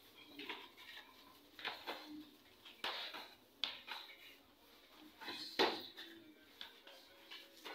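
Irregular short scuffs and slaps from two people sparring on a concrete floor, about six in all, the loudest a little past halfway.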